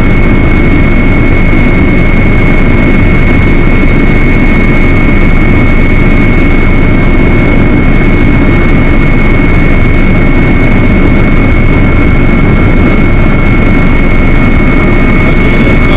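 Steady, loud drone of an aircraft in flight, heard on board: a rumbling low end with a constant high whine over it.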